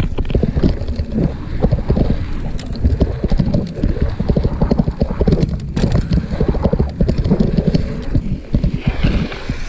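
Mountain bike rolling fast down a dirt trail: a dense, irregular clatter of knocks and rattles as the tyres and bike hit the bumps.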